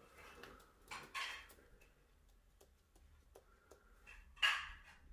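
Faint ticks of a pigeon's claws on a laminate floor as it walks, with two brief whooshing bursts, one about a second in and a louder one near the end.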